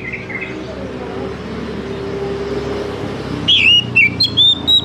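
Oriental magpie-robin singing. After a short gap with only a low steady hum behind, it starts a new phrase about three and a half seconds in: quick, varied whistled notes that jump and slur in pitch.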